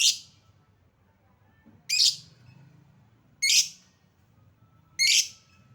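Lovebird giving short, high-pitched calls, one about every one and a half seconds, four in all. These are the lure calls played to make other lovebirds answer.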